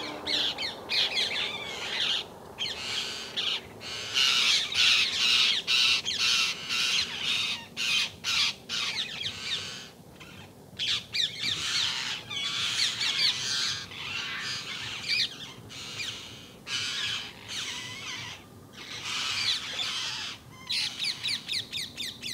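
Rose-ringed parakeets giving shrill, harsh calls over and over in quick succession, louder in bursts about 4, 11 and 19 seconds in: a flock calling in alarm at a snake in their tree.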